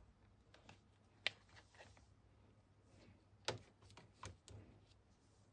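Faint clicks and taps of a smartphone being pried out of its clear plastic case, with a sharper click about a second in and another about three and a half seconds in, among otherwise near silence.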